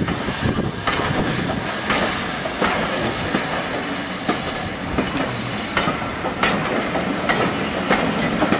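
Steam-hauled passenger train passing close by: a steady hiss of escaping steam over the rumble of the carriages, with a sharp clack about every second as the wheels run over the rail joints.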